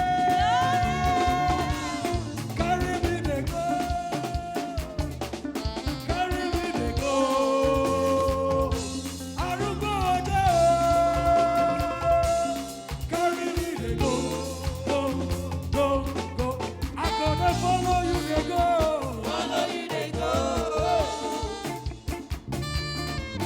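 Upbeat live praise-band music: drum kit and bass keeping a dance groove under a melodic lead line.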